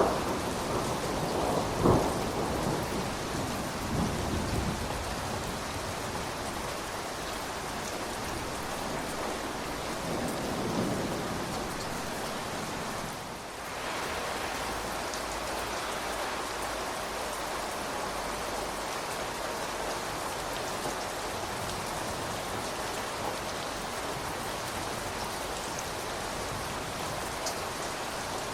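Steady rain falling and pattering on surfaces, with the tail of a thunder rumble dying away over the first few seconds.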